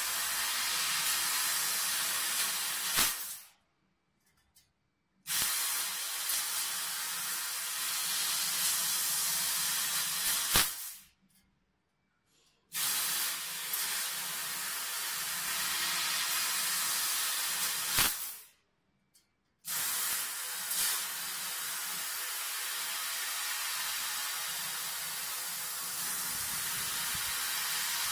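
Steady hiss of a 1 kW fiber laser cutting head's gas jet cutting through 4 mm stainless steel pipe. Three times the sound drops out completely for a second or two and comes back abruptly, with a sharp crack just before each drop.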